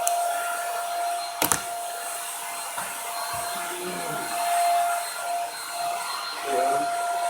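Steady whirring of a small electric appliance motor or fan: an even hiss with a constant humming tone. One sharp click comes about a second and a half in.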